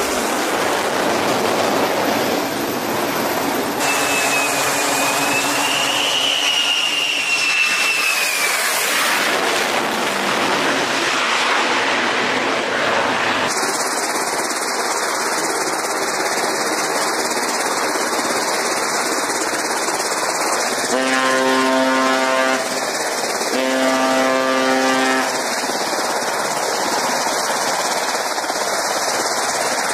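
Steady engine noise that changes abruptly at several cuts, with a wavering whine in the first third and two short horn blasts past the middle.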